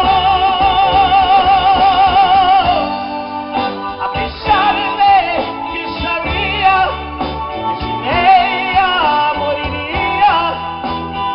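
A band playing an instrumental passage of a romantic ballad over bass and drums. A lead melody is held with a wide, even vibrato for the first few seconds, then breaks into short phrases that slide between notes.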